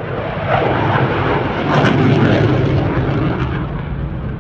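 Eurofighter Typhoon fighter jet's twin jet engines making a loud, steady roar as it flies its display, the noise swelling about two seconds in and easing off toward the end.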